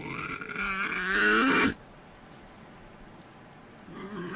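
Young Tasmanian devil growling, a harsh, wavering call lasting about the first second and a half.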